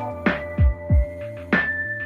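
Electronic background music: held synthesizer notes over a steady kick-drum beat.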